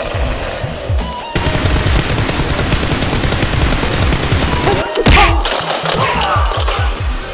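Rapid, sustained gunfire sound effects over background music with a steady beat. The firing starts about a second in and breaks off briefly near five seconds.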